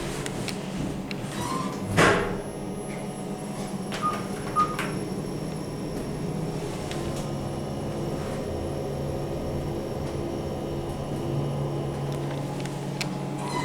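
2004 KONE MonoSpace machine-room-less traction elevator: a steady low hum, a loud clunk about two seconds in, and two short high beeps about half a second apart a couple of seconds later.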